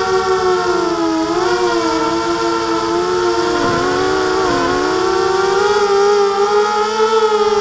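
Blackout Mini H quadcopter's brushless motors and 5-inch propellers whining in flight, a steady multi-tone drone. The pitch sags slightly a second in, then dips sharply twice in quick succession about three and a half and four and a half seconds in before rising back, following the throttle.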